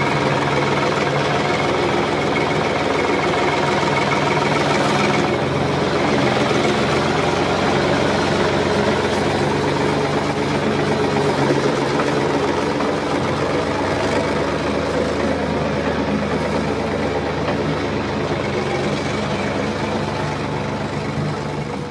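A heavy engine running steadily at an even speed.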